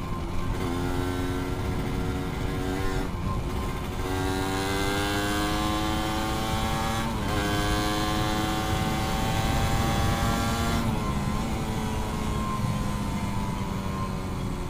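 Suzuki Satria 120 two-stroke single-cylinder engine pulling the bike up through the gears. Its pitch climbs steadily in each gear and drops briefly at each of three shifts, then holds fairly level near the end.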